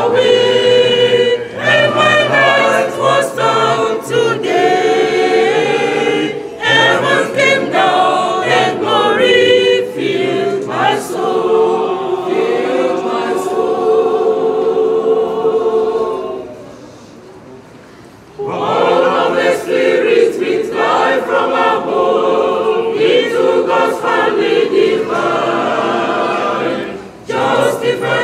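Mixed church choir singing a hymn. About halfway through, the singing fades to a faint tail for about two seconds, then the full choir comes back in.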